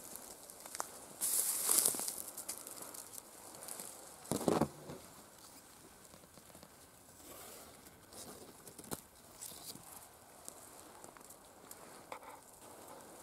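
Rustling and crackling of someone moving through dry leaf litter, grass and bracken on a forest floor. It comes in two short bursts, about a second and a half and four and a half seconds in, with scattered small clicks between and after.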